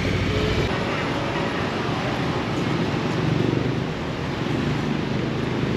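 Harley-Davidson Street Bob's V-twin engine running at low speed, its steady low note swelling briefly about three seconds in.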